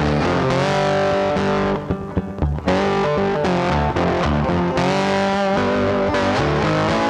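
Background music led by distorted electric guitar, with a short break about two seconds in.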